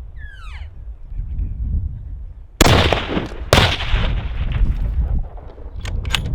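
Two rifle shots about a second apart, each trailing off in a long echo.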